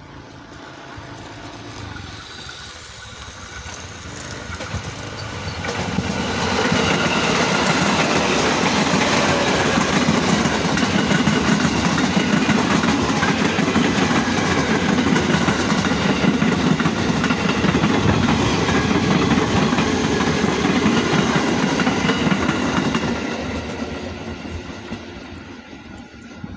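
KRL commuter electric multiple-unit train passing on the tracks: its sound builds as it approaches, runs loud for about fifteen seconds as the cars go by, then fades as it moves away.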